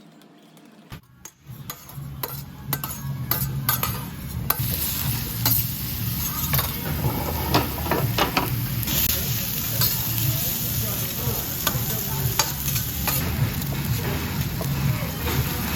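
Pork belly sizzling on a hot iron griddle plate, starting about a second in and building to a steady sizzle, with scattered clicks of utensils against the plate. A steady low hum runs underneath.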